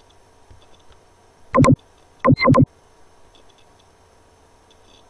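Computer mouse clicks: one sharp click about a second and a half in, then two more in quick succession like a double-click, with faint ticking from the mouse or scroll wheel in between.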